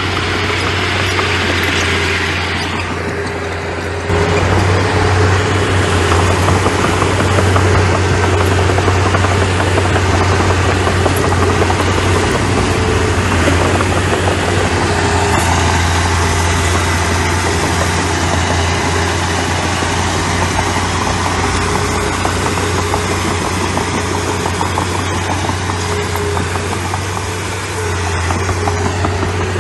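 Diesel engine of a small earthmoving machine running steadily, with a strong low hum; it gets louder about four seconds in and eases off briefly near the end.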